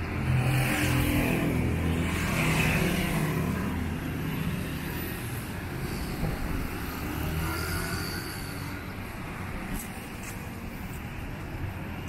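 Road traffic: a car drives past close by, its engine and tyres loudest about one to three seconds in, then fading into a lower hum of lighter traffic with motorcycles going by.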